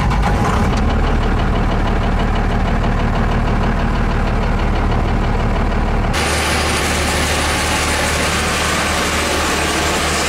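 Chevrolet C10 pickup's engine running, heard from inside the cab as a steady low drone. About six seconds in the sound changes abruptly to a harsher, rushing noise.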